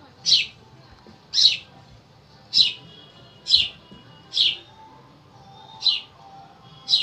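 Short, high bird-like chirps, seven in all, repeating evenly about once a second over a faint background of steady tones.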